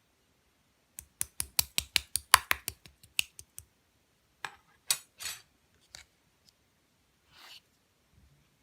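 Slime being played with by hand: a quick run of sharp clicking pops, about five a second, then a few scattered pops and a short squishing swish.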